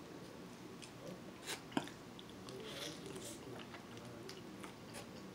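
Close-up mouth sounds of a man chewing and biting a forkful of curry chicken and shrimp, with faint wet clicks throughout and one sharp click a little under two seconds in.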